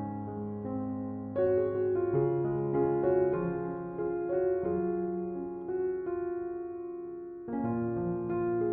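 Slow, soft piano music: held chords and single notes ringing on, with new chords struck about a second and a half in and again near the end.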